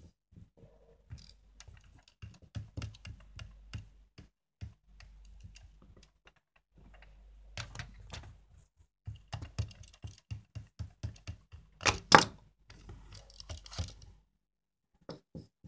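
Plastic Minion toy figures being handled, knocked together and set down on a tabletop: a string of small clicks and taps, the loudest knock about twelve seconds in.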